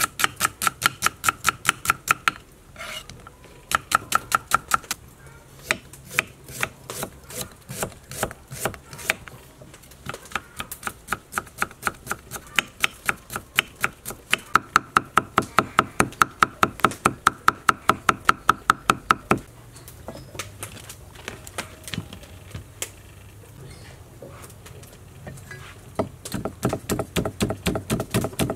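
Cleaver chopping fast on a thick round wooden chopping board, about seven strokes a second, in runs of several seconds, cutting and mincing ginger and garlic. For a few seconds past the middle the strokes become slower and softer, then the fast chopping resumes near the end.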